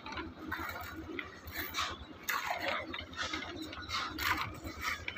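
Irregular light clicks and scrapes of manual concrete work: metal pans of concrete being handled and passed along.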